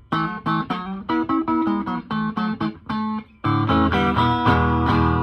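DiPinto Galaxie electric guitar played through an amp on one split coil of its DiPinto pickup: a run of quick picked single notes, then strummed chords ringing from about three and a half seconds in. The tone is bright and a little trebly, with the clicky high end of one coil through a 500K pot.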